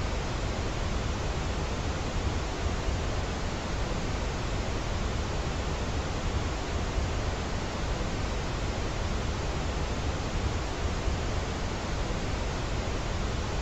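Steady hiss with a low rumble beneath it, unchanging and with no separate sounds in it.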